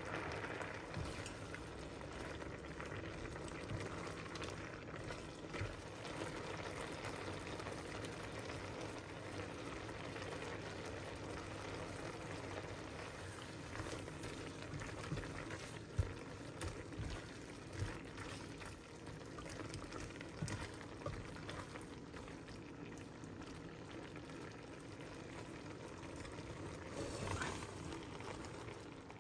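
Penne and shrimp in a cream sauce simmering in a skillet: steady bubbling with scattered small pops.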